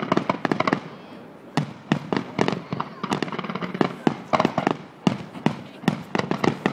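Aerial fireworks going off in quick succession: a dense run of sharp bangs and crackles, easing briefly about a second in before the salvo picks up again.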